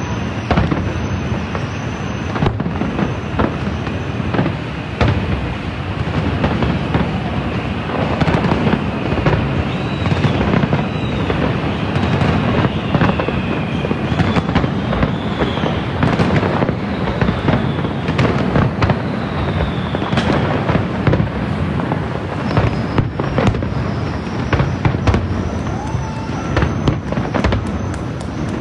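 A fireworks display: a continuous rapid barrage of bangs and crackles from bursting aerial shells, with several whistles gliding up and down in pitch through the middle stretch.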